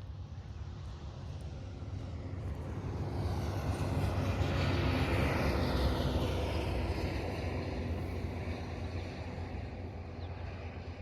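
A vehicle passing by, its rumble swelling to a peak about five or six seconds in and then fading away.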